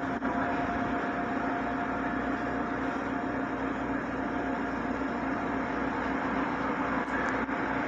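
Steady rumble and hum inside an electric commuter train, with a faint thin tone over the first few seconds.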